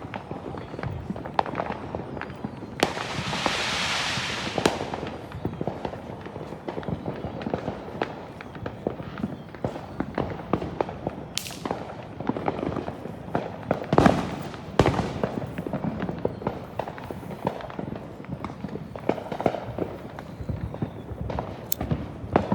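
Fireworks and firecrackers going off all around in an irregular barrage of pops and bangs. About three seconds in there is a hissing burst lasting under two seconds, and a few sharper, louder bangs come past the middle.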